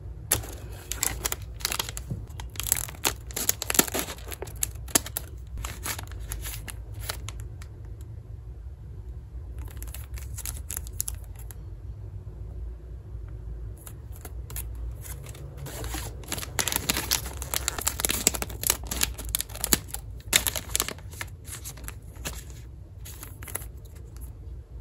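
Plastic wafer-snack wrappers being torn open and crinkled by hand, in several bouts of crackly rustling with short pauses between.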